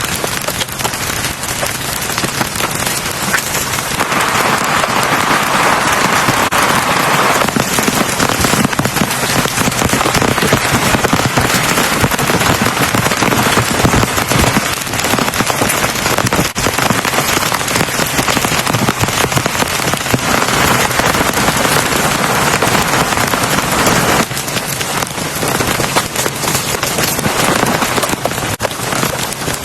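Heavy rain falling on a surface: a dense, steady wash of noise made of countless small drop impacts, swelling louder for a few seconds at a time.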